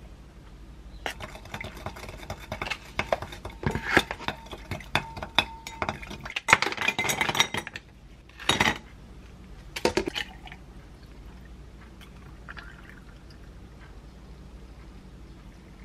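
Long stirrer whisking matcha in a glass tumbler: fast, dense clinking against the glass for several seconds. Then ice cubes are dropped into the glass in two short clattering bursts, after which it goes quiet.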